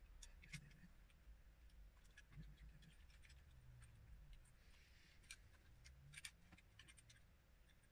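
Near silence with faint, scattered clicks of plastic LEGO pieces being handled and pressed together.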